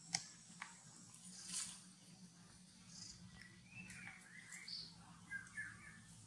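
Quiet outdoor background with a few soft clicks and a rustle, and faint short wavering chirps in the second half.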